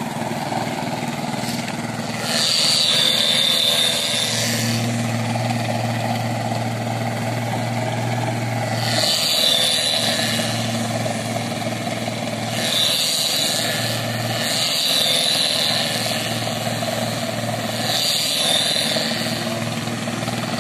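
Transit concrete mixer truck's engine running with a steady low hum that dips and returns, under a louder hiss that comes and goes in spells of a second or two, five times.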